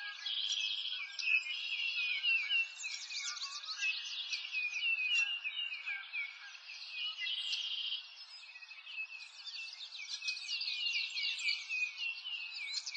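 Dense chorus of small birds chirping and twittering, many short overlapping calls, easing off briefly about eight seconds in.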